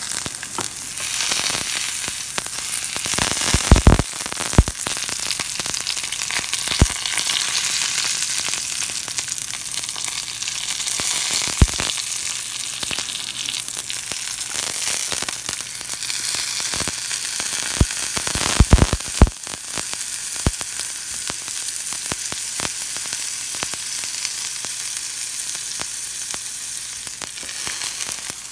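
Coral mushrooms frying in oil in a stainless steel pan, well browned: a steady sizzle with a few sharp pops scattered through, several close together past the middle.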